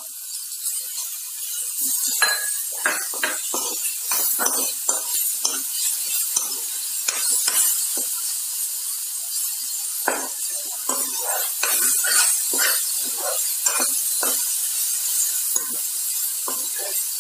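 Chopped vegetables sizzling in hot oil in a kadhai, with a steel spoon stirring and scraping against the pan in many short, irregular strokes.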